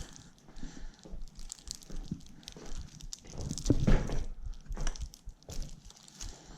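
Irregular clicks, knocks and rustling from the electric scooter being handled, with a heavier thump about four seconds in.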